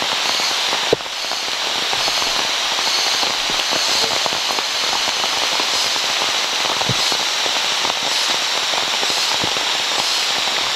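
Heavy rain falling steadily, a dense crackle of drops striking leaves and surfaces, with one brief knock about a second in.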